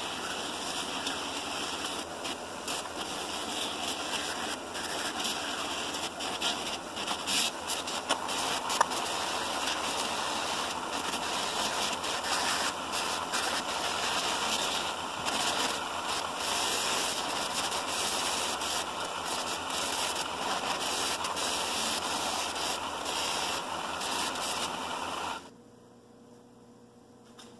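Bench buffer running with a cloth buffing wheel charged with carnauba wax, a briar pipe bowl pressed against it: a steady rushing noise with irregular scuffs. The noise stops abruptly near the end, leaving a low hum.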